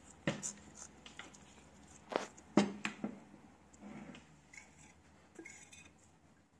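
Knife and fork cutting a hamburger steak, the steel cutlery clicking and scraping against a ceramic plate several times, loudest about two and a half seconds in.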